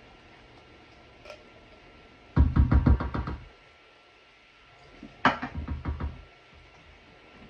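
A spatula knocking and scraping against metal while emptying condensed cream of mushroom soup from a can into a stainless steel bowl. The knocks come in two quick rattling bursts of about a second each, the first a little over two seconds in and the second about five seconds in.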